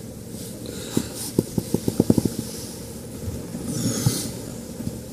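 Steady low hum of a space heater running, with a quick run of about a dozen clicks about a second in and a burst of bedding rustling near the end.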